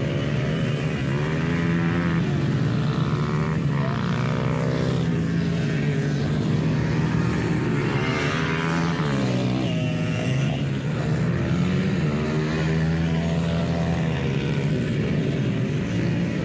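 Several small pit bike engines racing, their pitch rising and falling as the riders rev up and shift around the track. One bike passes close about halfway through, louder, then drops in pitch as it goes by.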